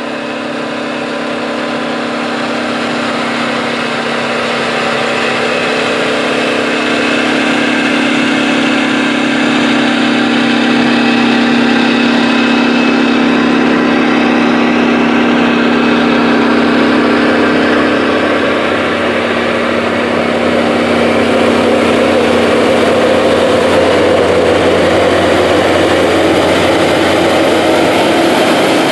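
The Big Bud 16V-747's 1,472 cubic inch Detroit Diesel V16 engine working hard under load as the tractor pulls a chisel plow past, growing louder over the first several seconds. In the second half a second big four-wheel-drive tractor, a Big Bud 440 pulling an air drill, comes up and its engine takes over.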